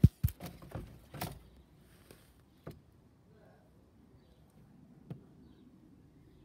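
Knocks and scrapes of a tablet being pushed through a narrow gap between wooden boards, a quick cluster in the first second and a half. Then it is nearly quiet, with two faint single clicks later on.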